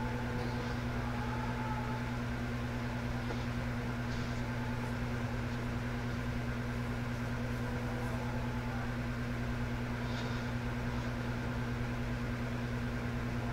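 Electric fan running in the room: a steady, even hum with a low drone.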